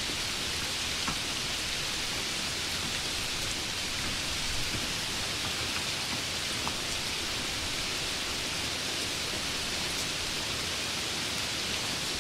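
Steady rain falling, an even hiss, with a few faint clicks here and there.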